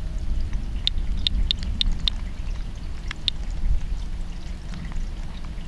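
Radiation Alert Inspector Geiger counter chirping irregularly, one short high chirp for each detected count, roughly two a second, over a steady low rumble.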